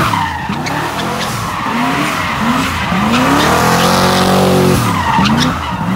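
A car doing a burnout or donuts: the engine revs up again and again in short bursts and holds high in the middle, while the tyres squeal and skid.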